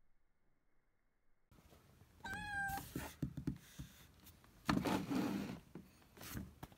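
A bicolor kitten inside a plastic pet carrier meows once, briefly, about two seconds in. Rustling and bumping noises follow as the carrier is handled, the loudest about five seconds in.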